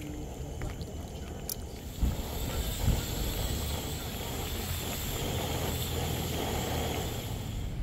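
Wind gusting across the microphone as fog blows through: a steady rushing noise with a low rumble that picks up suddenly about two seconds in.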